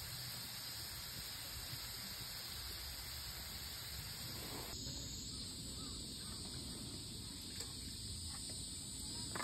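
Hot oil sizzling steadily around shoestring fries shallow-frying in a pan. The sound changes abruptly about halfway through.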